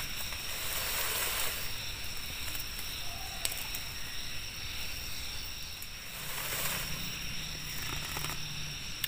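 Night-time forest ambience: a steady high chirring of insects over a soft hiss, with a couple of faint ticks and a faint low hum from about six and a half seconds in.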